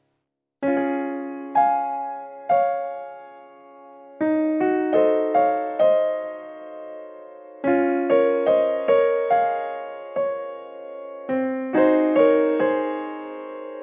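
Background music: keyboard notes and chords struck one after another and left to ring and fade. It starts about half a second in, after a brief silence.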